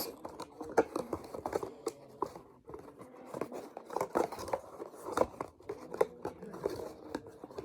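Irregular clicks and scraping from hands handling a plastic puzzle cube and its cardboard box.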